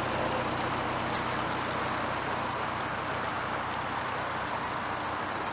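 Narrowboat's diesel engine running steadily with a low hum, over the churn of water stirred by its propeller as the boat goes by.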